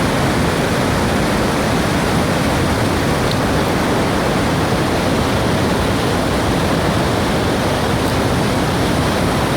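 The Rhine Falls, a large waterfall, giving a loud, steady rush of falling water.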